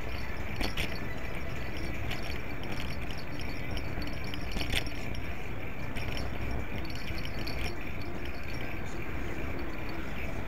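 Steady rumble and hiss of a bicycle rolling along a paved bike path, heard through a bike-mounted action camera, with a few light clinks and rattles from the bike or mount over bumps.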